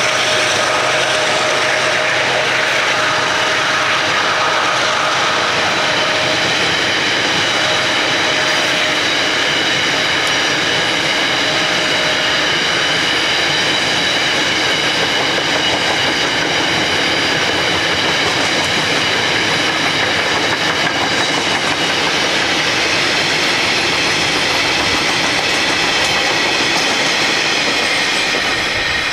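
Coal hopper wagons of a freight train rolling past on steel rails: a loud, steady rolling noise with several high-pitched squealing tones from the wheels, easing off near the end as the last wagons go by.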